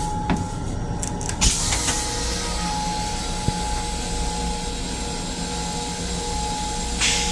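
A few clicks, then about a second and a half in the LIRR M7 railcar toilet's flush starts: a steady hissing rush that lasts about six seconds and swells briefly near the end. The train's steady running rumble is underneath.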